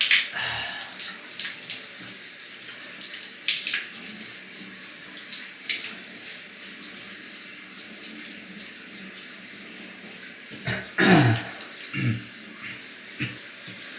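Water running steadily from a tap into a sink, with intermittent splashes as water is scooped and splashed onto the face to wet it for shaving, a few louder splashes about eleven seconds in.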